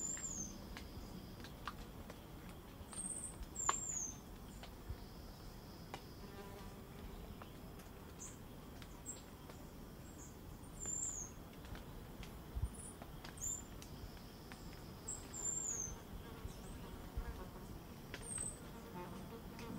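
Purplish-mantled tanager giving about a dozen short, very high, thin call notes, singly or in quick pairs, some sliding downward, spaced a second to a few seconds apart. The calls are faint.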